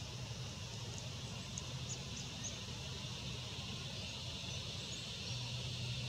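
Outdoor ambience: a steady high hiss and a low hum, with a few short, high-pitched bird chirps between about one and two and a half seconds in.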